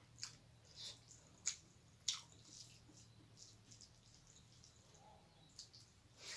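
Hand-eating sounds: faint wet clicks and smacks from chewing and from fingers squishing rice and dal on a plate, spaced irregularly. A louder, longer rush comes near the end as a handful goes to the mouth. A faint steady hum lies underneath.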